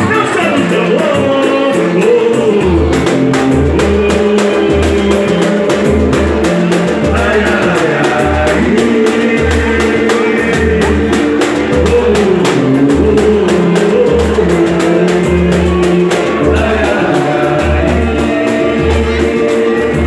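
Live group music: a man sings into a microphone over many strummed small guitars and hand percussion. A deep drum comes in with a steady beat about two seconds in.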